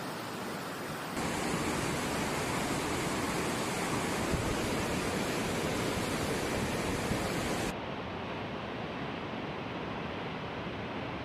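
Steady rush of fast-flowing floodwater, which jumps louder and fuller about a second in as a swollen river surges past. About two-thirds through it drops abruptly to a softer, duller rush of a waterfall pouring down a hillside.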